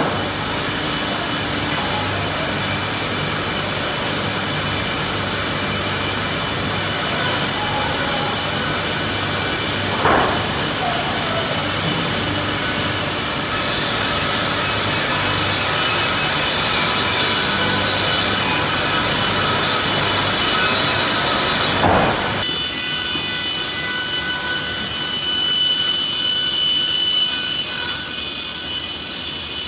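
Sawmill machinery sawing timber: a loud, steady noise of blades running through wood. There is a short knock about ten seconds in, and about two-thirds through the sound changes abruptly, losing its low rumble and leaving a high, steady whine.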